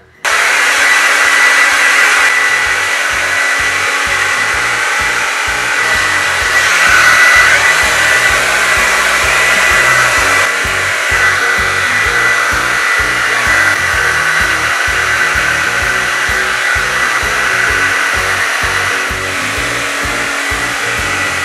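Revlon RV408 1875-watt turbo hair dryer switched on right at the start and running steadily, a strong rush of air with a thin high whine, drying wet hair.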